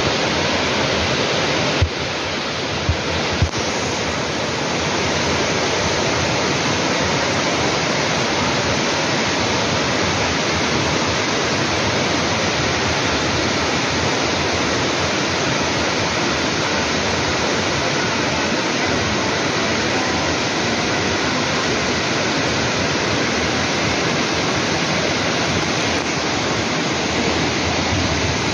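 Waterfall and fast-flowing river water rushing in a steady, loud roar. A few brief low thumps come about two to three and a half seconds in.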